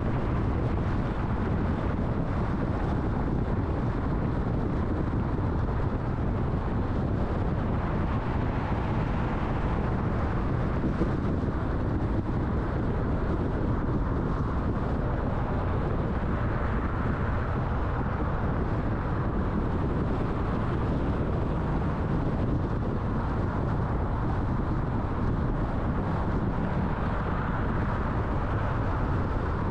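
Steady road noise of a car being driven: an even hum of tyres and engine, with no sudden sounds standing out.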